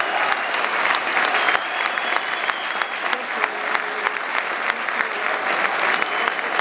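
Large stadium crowd of football fans applauding steadily, with a few faint voices rising above the clapping.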